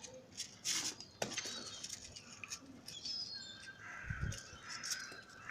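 Seagulls calling while feeding, with a few short noisy bursts such as wing flaps.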